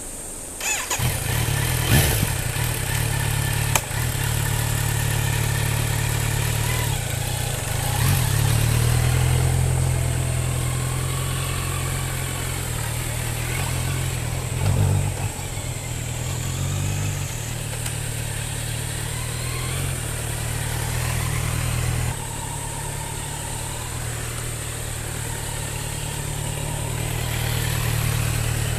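Kawasaki Z900's inline-four engine starting about a second in and settling into a steady idle, its speed shifting up and down a few times.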